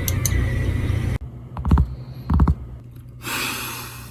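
A low rumble that cuts off abruptly about a second in, followed by two separate dull knocks and then a brief rustle.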